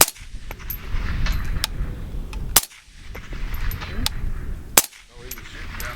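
Three suppressed rifle shots from a 7.62x39 piston AR-15 with a Dead Air Nomad suppressor: one at the start, one about two and a half seconds in, one near the end. Fainter sharp pops fall between them.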